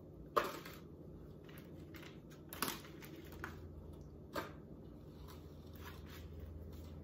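Scattered light clicks and taps of fried food being picked off plates and handled by hand, the sharpest three about half a second, two and a half seconds and four and a half seconds in, over a steady low hum.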